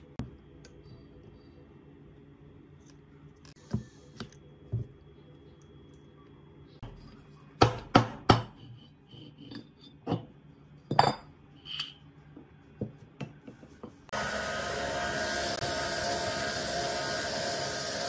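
Sharp metal knocks and clinks as an air-conditioner fan motor is taken apart, its rotor worked out of the stator. The loudest strikes come in a quick cluster about eight seconds in and again near eleven. About fourteen seconds in this gives way abruptly to the steady noise of a bench grinder's buffing wheel polishing the motor rotor.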